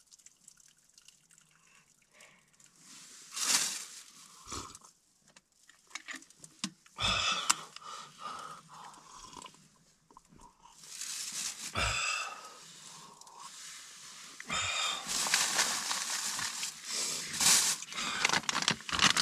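A drink poured from a thermos flask into its cup and sipped, with small handling knocks. Near the end a plastic bag rustles.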